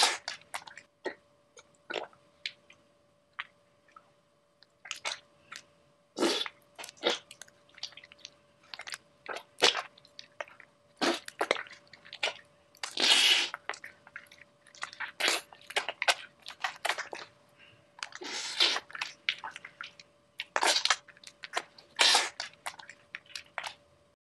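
Wet, squelching sound effects for Plasticine being squashed and reshaped: an irregular run of short sticky clicks and smacks, with a few longer squelches about halfway through and again later. A faint steady hum lies underneath.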